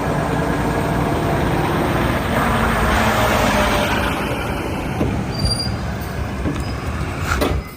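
Loud, steady rumbling and hissing noise with a few faint steady tones. It starts and stops abruptly.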